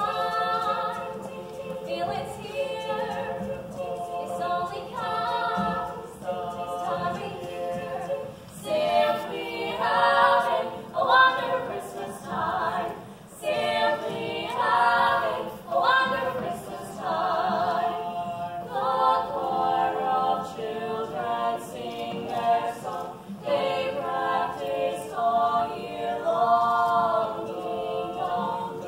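A small group of four female voices singing a cappella in harmony, phrase after phrase with short breaths between.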